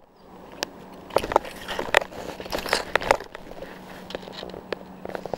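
Irregular crunching and clicking, with a faint steady hum underneath: handling noise as the camera is moved and rubs against clothing.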